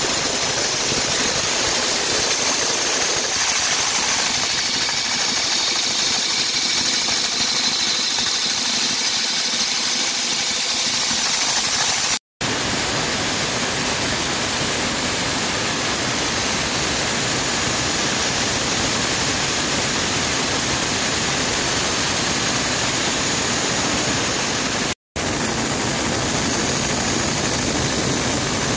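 Lapidary rock saw running and cutting through a thunderegg clamped in its vise, the blade throwing off a spray of water coolant: a loud, steady, hissing noise. The sound drops out for a moment twice, about 12 and 25 seconds in.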